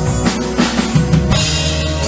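Live band playing an instrumental stretch of a worship song, the drum kit to the fore with regular snare hits and a cymbal crash a little past halfway, over bass and guitar.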